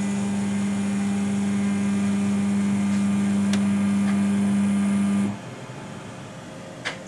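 Electric drive motor of an XRF analyzer's motorized sample stand running with a steady hum as it moves the detector and X-ray tube arm between sample positions. It stops abruptly about five seconds in, and a light click follows near the end.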